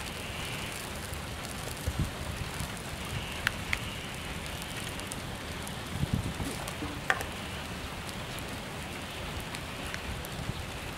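Scattered light knocks and clicks of outdoor food preparation: a knife on a wooden cutting board and containers, a glass bowl and a spoon being handled, over a steady background hiss.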